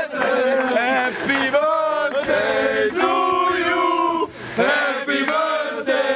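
A group of men chanting together in long, held notes, with a brief break about four seconds in: footballers' victory chant.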